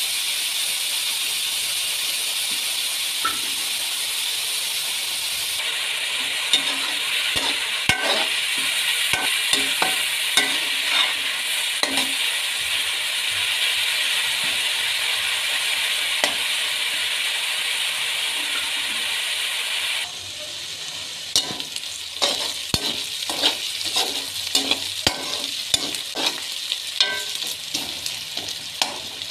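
Sliced onions sizzling in hot oil in a metal pot, stirred with a metal spatula that scrapes and clicks against the pot, as they fry towards light brown. The sizzle drops sharply about twenty seconds in, after which the spatula's clicks and scrapes stand out more.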